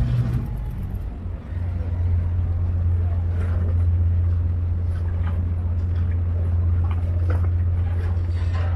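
Boat engine running with a steady low drone over a constant rushing noise. The drone dips briefly about a second in, then holds steady.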